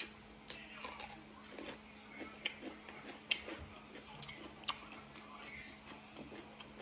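Biting into and chewing a piece of fresh cucumber: a run of short, irregular crunching clicks.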